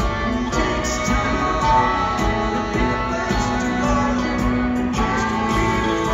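Live rock band playing an instrumental passage, electric guitars to the fore over drums and keyboards.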